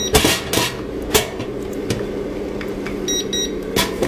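Knocks and clatter of the heating-pad tray being slid into the oven of a mini 3D sublimation printing machine, over a steady machine hum, with two short electronic beeps from the machine a little after three seconds in.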